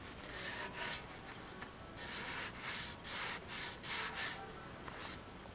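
Cloth rag rubbing over a painted tin canister in quick strokes, about two a second, wiping oil-paint antiquing into the surface and taking off the excess paint.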